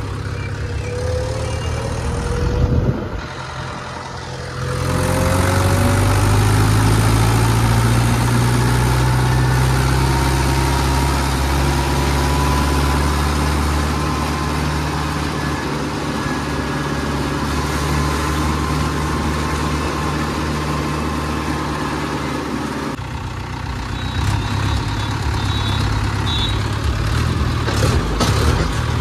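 Tractor engine running while driving, its pitch rising over the first few seconds and then holding steady.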